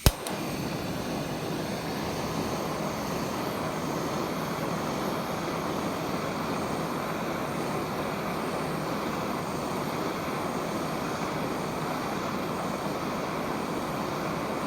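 Jeweller's gas torch lit with a sudden pop, then its flame hissing steadily while it heats a silver ring band for fusing.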